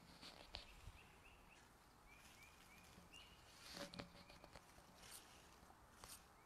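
Faint rustling and soft knocks of wet leaf litter and muck being picked through by hand on a sheet, the loudest handling noise about four seconds in. Behind it, a faint series of short rising chirps repeats in small groups.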